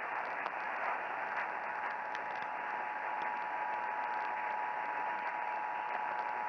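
Radio static hiss, with a steady Emergency Alert System attention tone starting about a second in and holding under the hiss.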